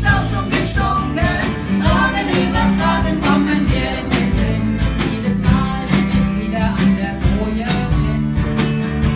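A band playing a song: guitar over a steady drum beat.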